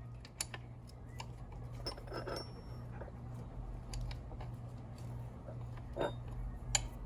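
Scattered light metallic clicks and clinks of hand tools being handled and set against metal, with a brief rustle about two seconds in and a duller knock near the end, over a steady low hum.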